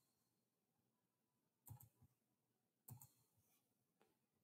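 A few faint computer mouse clicks, in twos, about a second apart, against near silence.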